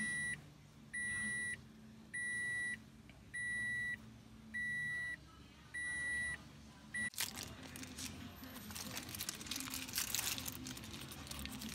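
A car's warning chime beeping steadily, one high beep a little more often than once a second, about six times; it cuts off suddenly about seven seconds in. After that there is crackly rustling from plastic dashboard parts being handled.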